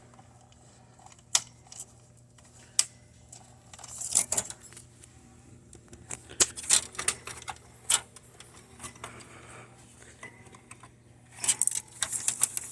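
Scattered sharp clicks and short bursts of light clatter, the loudest cluster near the end, as a DDR2 RAM stick is handled and worked into its slot inside a computer.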